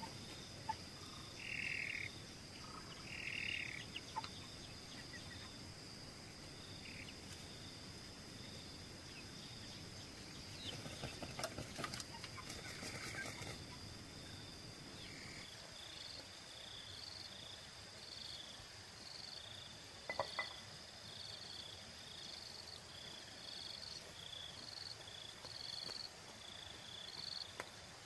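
Outdoor animal calls: a steady high-pitched drone with a rapid string of short, evenly repeated chirps. Around the middle come soft rustles and clicks as the dust-bathing chickens shuffle their feathers and scratch in the dry soil.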